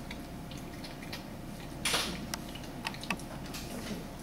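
Bulldog eating: scattered small clicks of chewing and mouth noises, with one louder crunch about two seconds in.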